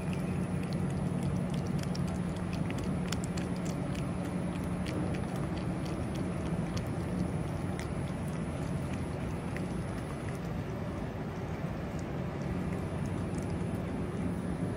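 A cat chewing and lapping wet food from a metal dish close up: quick irregular wet clicks that thin out after about ten seconds, over a steady low hum.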